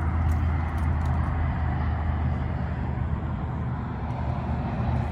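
Engine running steadily, a low even hum with no change in speed.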